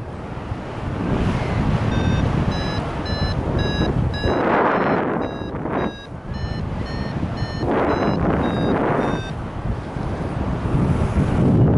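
Paragliding variometer beeping: short beeps about two a second from about two seconds in until about nine seconds in, the sign of the glider climbing in lift. Gusting wind rushes over the microphone throughout.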